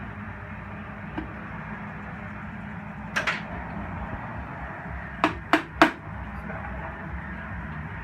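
Three sharp knocks in quick succession a little over five seconds in, after a single softer knock about three seconds in, over a steady low background hum.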